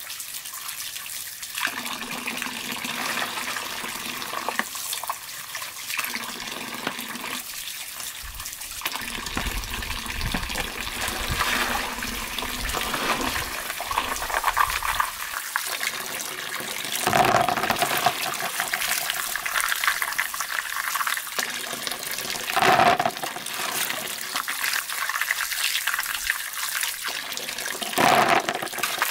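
Water running from a pipe into a basin of muddy water while freshwater mussels are rubbed and splashed by hand, with a few louder splashes along the way. Near the end, snails clatter as they are dropped into a plastic basin.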